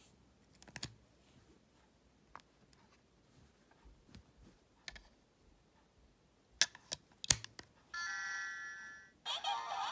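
Small plastic clicks as the heart charm is lifted off and pressed back onto the Dreamy Compact toy, the loudest pair of clicks about seven seconds in. The toy then sounds a steady electronic chime for about a second and starts playing a synthesized jingle with sung melody near the end.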